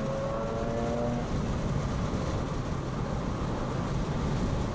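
Mazda RX-8's twin-rotor rotary engine under way, heard from inside the cabin. Its note climbs slightly for about the first second, then fades into a steady rumble of road and tyre noise.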